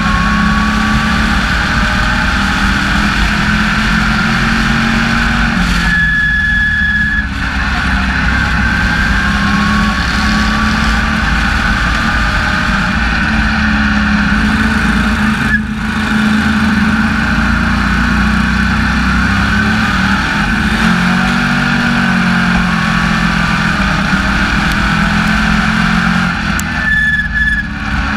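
SK Lite Modified race car's engine running hard at racing speed, heard from inside the cockpit, its pitch rising and falling through the laps. It briefly drops back about six seconds in, around fifteen seconds, and again near the end.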